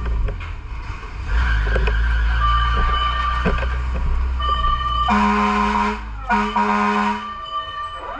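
Fire truck engine running under way, with two loud horn blasts about five and six seconds in.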